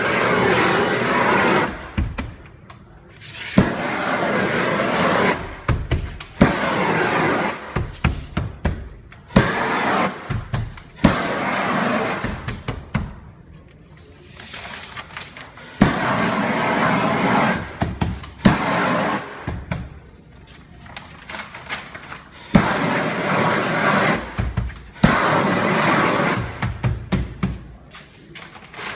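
18,000 BTU propane shrink-wrap heat gun firing in repeated bursts of one to three seconds, each a loud rushing flame noise, heating and welding the shrink-wrap film. Sharp clicks and knocks fall in the quieter gaps between bursts.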